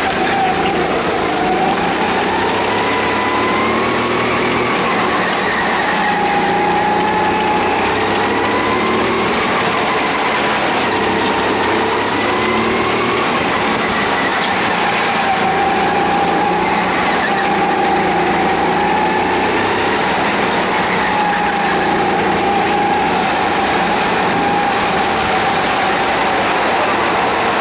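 Go-kart motor running under way, a steady whine whose pitch rises and falls as the kart speeds up and slows for the corners, over a constant rush of noise.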